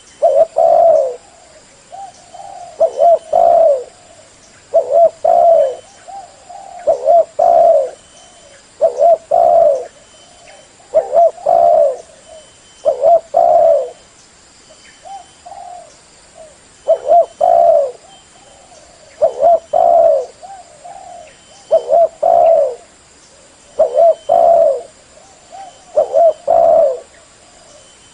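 Spotted dove cooing loudly and repeatedly: short phrases of a few low notes, one about every two seconds, with a faint steady high hiss beneath them.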